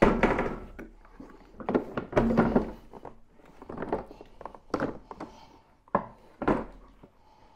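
Plastic body of a Makita electric lawnmower being turned over and shifted on a metal work bench: a series of thunks, knocks and short scrapes, the loudest at the very start.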